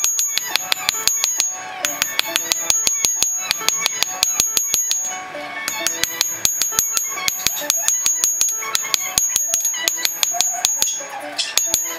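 Hand hammer striking red-hot San Mai blade steel on an anvil, a quick run of blows at about three to four a second, each with a bright metallic ring. The blows pause briefly twice as the blade is drawn out.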